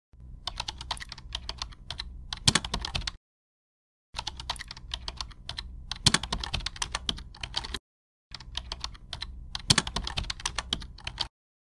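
Computer keyboard typing: three runs of rapid keystrokes, each a few seconds long, with a short silent gap between them.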